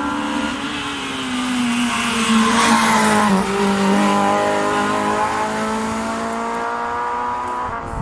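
Race car engine at high revs, growing loud as the car passes close by about three seconds in, with a short dip in pitch there, then climbing in pitch again as it accelerates away up the road.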